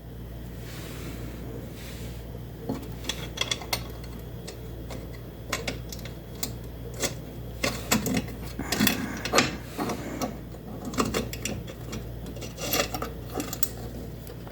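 Scattered small metal clicks, taps and rattles as a washer and wing nut are fitted and worked onto a bolt by hand, denser in the second half, over a steady low hum.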